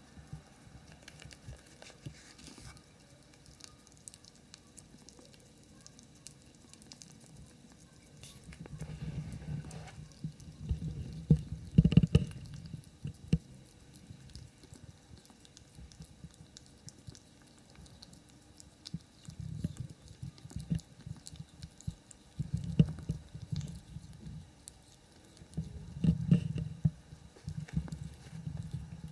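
Ferrets licking and chewing at a treat held in a hand, heard as wet, irregular smacking clicks that come in bouts of a few seconds, with low bumps from close handling.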